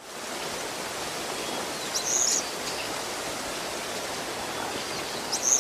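Steady, even rushing noise with two short high chirps, about two seconds in and near the end.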